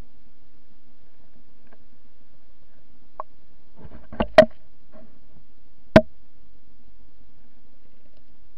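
Sound recorded underwater by a camera in a rock pool: a steady low hum with a few sharp knocks, a pair about four seconds in and a single loud one near six seconds, as the camera bumps against the stones.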